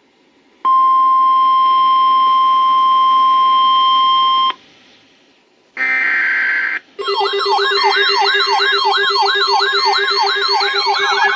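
Electronic emergency-alert tones: a steady alert tone of about 1 kHz held for about four seconds, then a short burst. After that comes a loud, fast-warbling siren-like alarm, repeating about three times a second.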